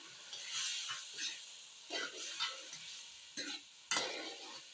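A spoon stirring and scraping through chicken and vegetables frying in oil in a pan, in irregular strokes over a light sizzle.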